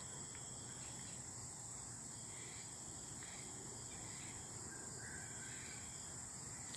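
Quiet outdoor ambience: insects droning steadily at a high pitch, with a couple of faint bird calls about two and a half and five seconds in.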